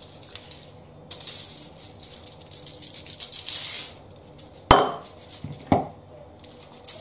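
Aluminium foil crinkling and rustling as hands rub salt into a whole mackerel lying on it, then two sharp knocks about a second apart.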